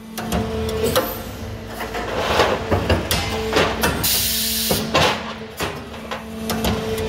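APS RPS-504 punching line punching holes in steel flat bar: a run of sharp metallic punch strokes and clanks, unevenly spaced, over the machine's steady hum, with a burst of hiss about four seconds in.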